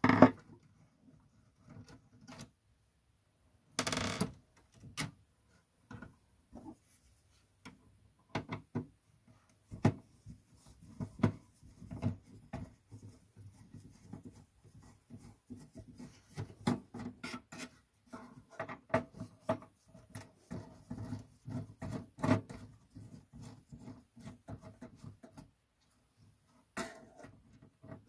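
Small irregular clicks and scrapes of a screwdriver on screws and of metal parts being handled while the disk drive is unscrewed from an MSX2 computer, with a louder scrape about four seconds in.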